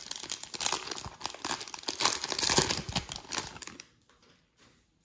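Foil trading-card pack wrapper being torn open and crinkled by hand; the crackling stops about four seconds in.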